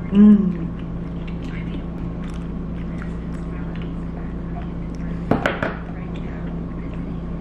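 Quiet chewing of a mouthful of croissant, with faint mouth ticks over a steady low hum. A short hummed 'mm' comes just at the start, and a brief breathy burst a little past the middle.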